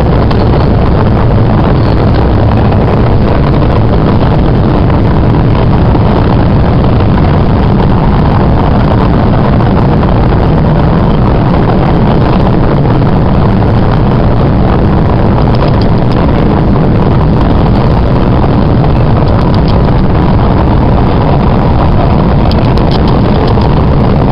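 MBTA Red Line subway train running through a tunnel, heard from inside the car: a loud, steady rumble of wheels on the rails, with a few faint high clicks in the second half.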